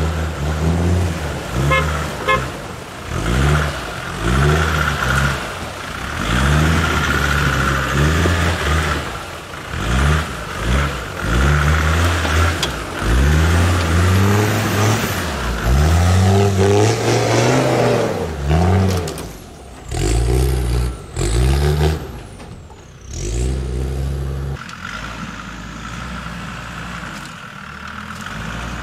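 Land Rover Discovery Td5's five-cylinder turbodiesel engine revving hard in repeated throttle bursts, rising and falling again and again under load on large mud tyres. Near the end it settles to steadier, lower running.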